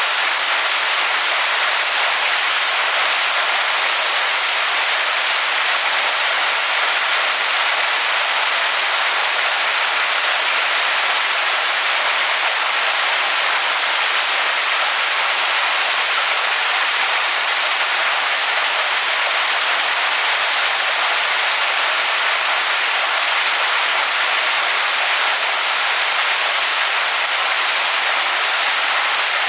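Waterfall splashing onto rocks: a steady, even hiss of falling water with no changes.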